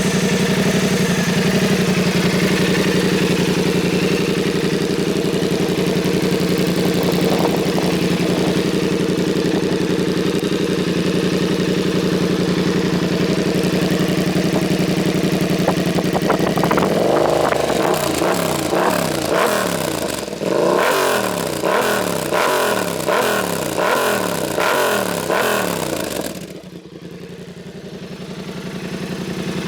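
2022 Yamaha R7's 689 cc parallel-twin engine through an aftermarket Spark exhaust, idling steadily. About halfway through the throttle is blipped several times in quick succession, each rev rising and falling. Near the end it drops back to a quieter idle.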